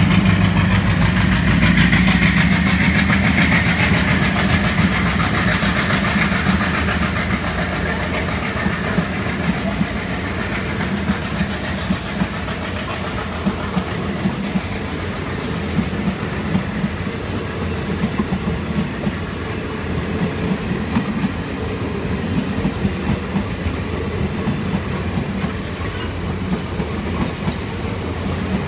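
Express train passing on the adjacent track: the diesel locomotive's engine is loudest in the first few seconds, then the coaches roll by with a steady rumble and clickety-clack of wheels over rail joints, with a faint high whine above.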